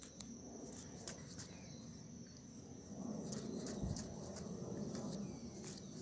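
Steady high insect trill, like a cricket, with scattered sharp clicks. From about three seconds in comes louder rustling of dry grass underfoot, with a single thump near the four-second mark.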